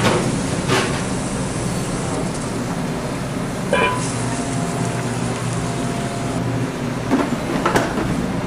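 Busy outdoor urban ambience: a steady wash of background noise with a few brief voices and short knocks.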